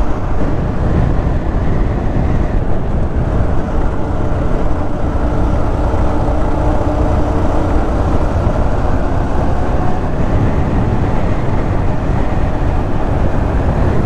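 Wind rushing over the microphone of a motorcycle-mounted ride camera at road speed, with the Yamaha R15's single-cylinder engine running steadily underneath.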